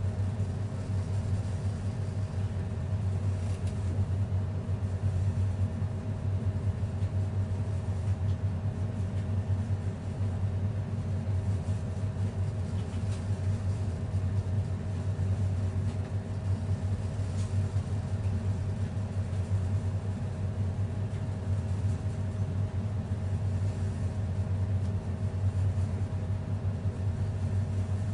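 Steady low rumbling hum with a faint, even higher tone held above it, unchanging in level.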